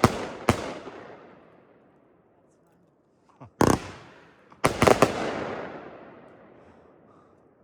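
Consumer firework cake (World Class Fireworks Airstrike) firing its last shells as sharp aerial bangs. Two bangs come near the start, a single bang about three and a half seconds in, and then a quick cluster of several loud breaks about five seconds in. Each trails off in a long, rolling echo.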